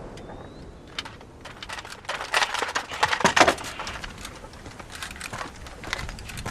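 Objects being handled: a run of sharp clicks and rustles, busiest about two to three and a half seconds in.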